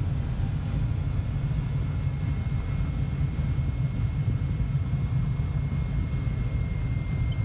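Twin turbocharged six-cylinder piston engines of a Cessna 340, heard from inside the cabin as a steady low drone with a faint high whine, during the landing rollout on the runway.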